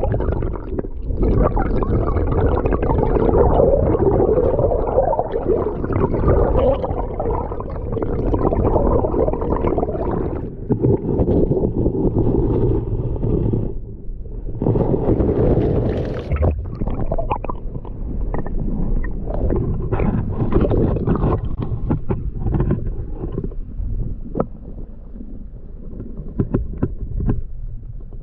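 Muffled gurgling and rumbling of river water heard through a camera held underwater, with scattered sharp clicks and knocks. It thins out toward the end.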